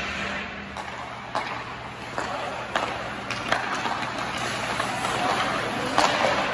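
Ice hockey practice: skates scraping across the ice, with sharp clacks of sticks on pucks scattered through, the loudest about six seconds in.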